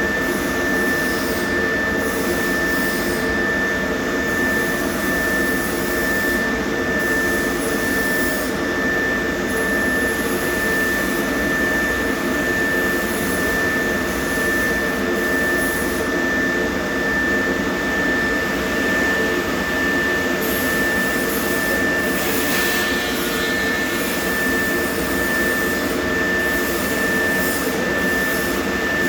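A steady mechanical drone with a constant high-pitched whine running over it, holding even throughout.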